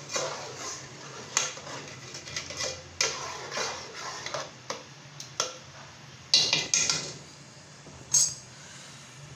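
Slotted metal spoon stirring a thin semolina mixture in an aluminium pot, scraping and clinking against the pot in a run of short strokes. Near the end come a few sharper, louder metal clinks.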